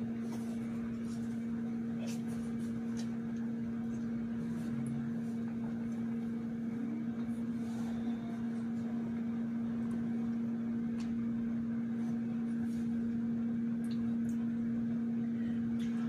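Steady low electrical hum with a fainter higher tone above it, over quiet room tone, with a few faint clicks.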